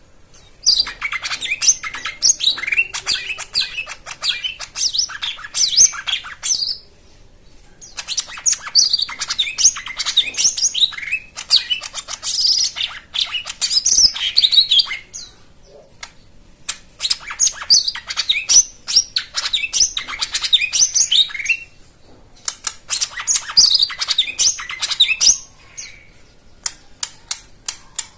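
Cucak ijo mini, a small leafbird, singing a rapid, varied chirping song in four bursts separated by short pauses. Near the end it switches to a quick run of sharp, evenly spaced notes.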